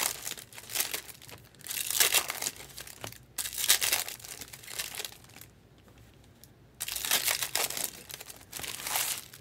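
Foil wrappers of Bowman Chrome baseball card packs being torn open and crinkled by hand, in several short bursts with a quieter pause about two-thirds of the way through.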